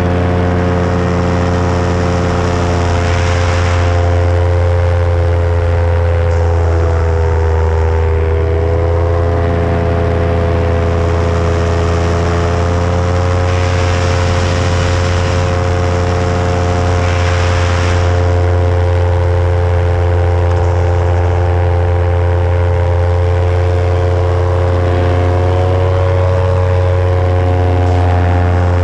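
Paramotor engine and propeller running steadily in flight, its pitch dipping slightly about seven seconds in and then coming back up. A few brief swells of hiss rise over it now and then.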